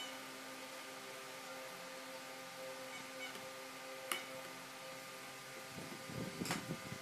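A steady electrical hum, with a single sharp click about four seconds in. Near the end come a few seconds of irregular wooden knocking and rubbing as the plywood drill-press carriage is handled.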